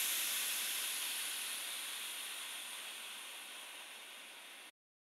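Steady hiss of escaping steam, fading out gradually and cutting off to silence near the end.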